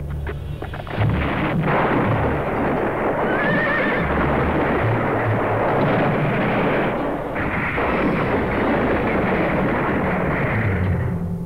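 Cartoon rockslide sound effect: a loud, noisy rush of tumbling rocks that starts about a second in and runs until near the end. A horse whinnies about three seconds in, and low background music plays underneath.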